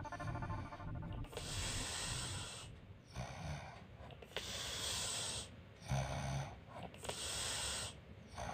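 A woman snoring in deep sleep: a low snore alternating with a breathy, hissing breath, about three breath cycles, one every two to three seconds.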